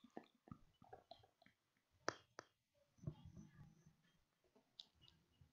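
Near silence: room tone with a few faint, short clicks, the clearest about two seconds in.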